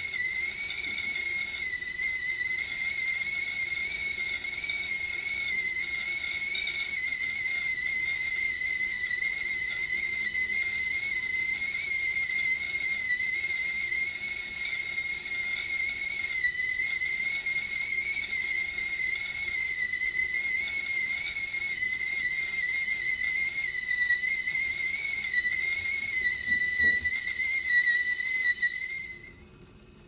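Blue enamel stovetop whistling kettle whistling at the boil: one steady high whistle with a slight waver in pitch, cutting off near the end.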